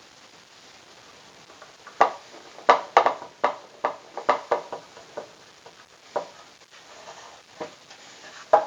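Sharp wooden knocks and clacks, a quick run of about ten, then a few scattered ones: parts and hand tools being handled and set down while a wooden table saw sled is assembled.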